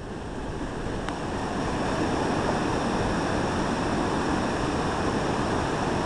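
Water pouring over a low-head dam: a steady rush of falling and churning whitewater, growing a little louder over the first two seconds and then holding.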